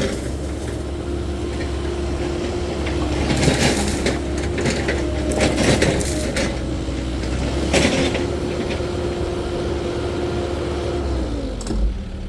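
Cat 308E2 mini excavator's diesel engine running steadily, with brush and branches cracking and snapping in several short bursts as it clears. Near the end the engine note falls as it throttles down toward idle.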